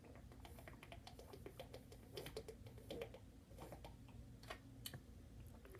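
Faint gulping and swallowing as a sports drink is drunk from a plastic bottle: a run of small, irregular clicks.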